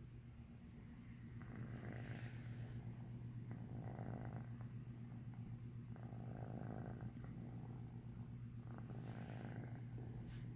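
A domestic cat purring steadily in a low, even drone that swells and eases gently.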